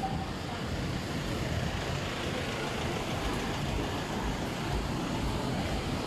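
Street traffic: a steady wash of passing vehicles with a low engine rumble.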